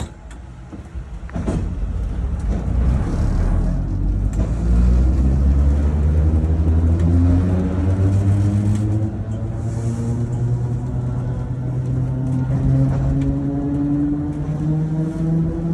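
Vintage Vienna tramcar M 4077 pulling away and accelerating: a knock about a second in, then a heavy rumble with a motor and gear whine that climbs slowly in pitch as it gathers speed.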